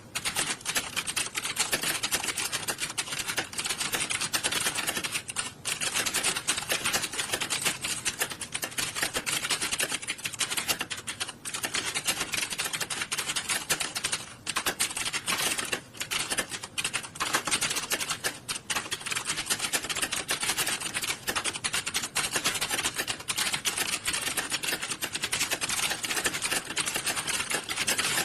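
Many computer keyboards typed on at once during a typing test, a dense, unbroken clatter of key clicks with a few brief lulls.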